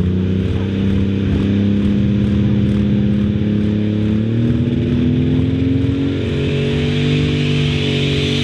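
Super stock pulling tractor's turbocharged diesel engine running hard under load during a pull, its pitch climbing slowly as it goes. From about six seconds in, a high whine rises with it.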